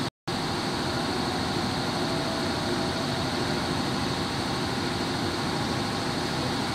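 Steady machine-like drone, even and unchanging, with no voices. The audio drops out completely for a split second just after the start.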